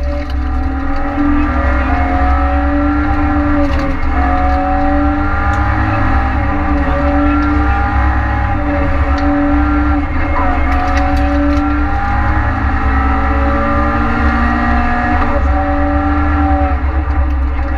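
Renault Clio rally car's engine at full stage pace, heard from inside the cabin: the revs climb and drop back several times, about 4, 10 and 15 seconds in, with the gear changes and lifts.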